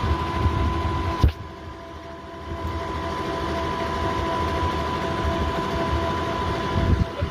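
Concrete-lifting hoist (monkey lift) machinery running steadily with a constant whine, a sharp knock about a second in, after which the sound drops and gradually builds back up.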